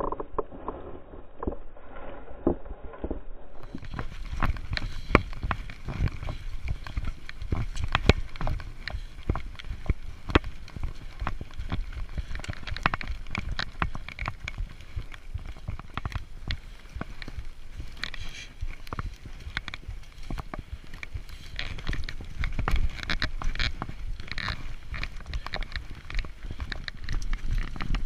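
Mountain bike ridden fast down a rough forest dirt trail: a constant rattle of quick clicks and knocks from the bike jolting over the ground, over a low rumble from the tyres and wind. For the first few seconds there are only scattered knocks as the bike is handled on the ground.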